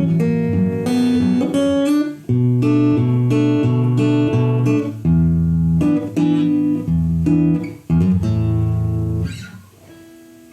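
Fender CD-60 acoustic guitar with a pickup, played through an active speaker: a run of picked notes and strummed chords, ending on a chord that rings out and fades about nine seconds in.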